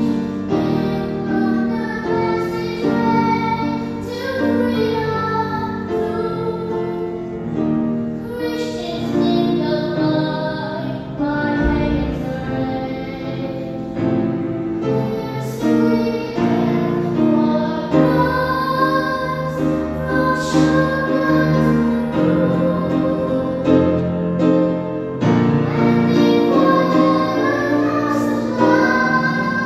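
A girl singing a slow devotional song solo into a microphone over an instrumental accompaniment.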